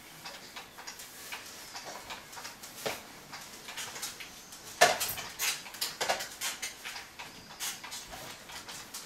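Scattered light clicks and knocks from a plastic Graco baby swing as a toddler climbs about in its seat and grabs its tray and frame, with one louder bump about five seconds in.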